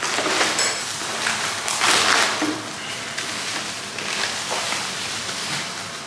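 Packaging rustling and crinkling in a series of swells as wrapped hookah parts are handled and unwrapped.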